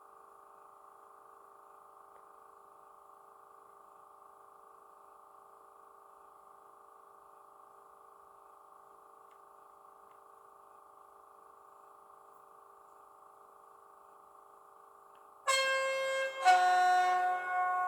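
DCC sound chip in an OO gauge Class 305 electric multiple unit model: a faint steady electric hum with several held tones, then a loud two-tone horn about 15 seconds in, a lower note followed by a higher, louder one, played through the model's small speaker.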